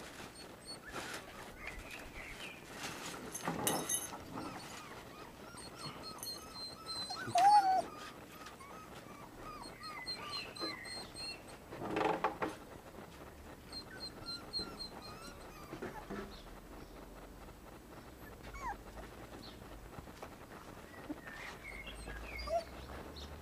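Young puppies giving short whimpers and yelps now and then, the loudest about seven and a half seconds in.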